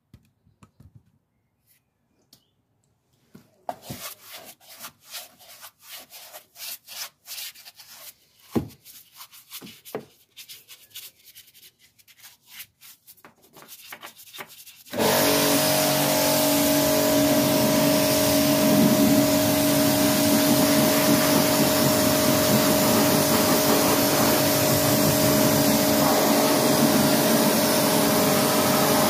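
Irregular rubbing strokes of a car's inner wheel arch being scrubbed by hand. About halfway through, a pressure washer starts suddenly and runs steadily: a hum under the hiss of its spray as the wheel arch is rinsed.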